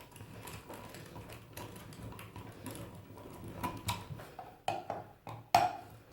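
Bellemain hand-cranked plastic meat grinder turning as it grinds fresh pork: faint, irregular clicking and knocking, with a few sharper knocks in the last couple of seconds, the loudest near the end.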